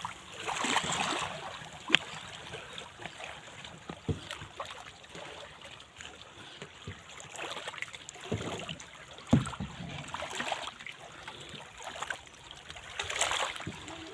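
Water splashing and sloshing in surges, as from kayak paddle strokes, with a few sharp single knocks.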